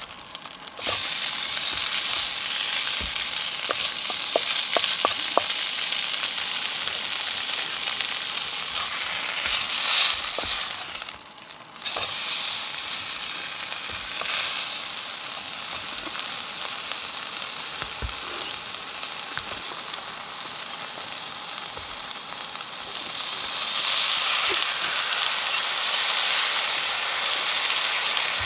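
A steak sizzling and frying in a hot pan on a gas camping stove, with a wooden spatula scraping and pushing it around the pan. The sizzle gets louder near the end as steam pours off the pan.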